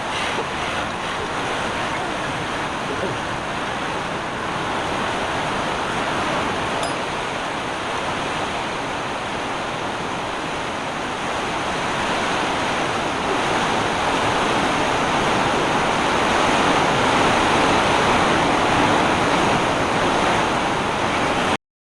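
Steady hissing rush of sandpaper held against a wooden workpiece spinning on a lathe, growing a little louder in the second half and cutting off at the very end.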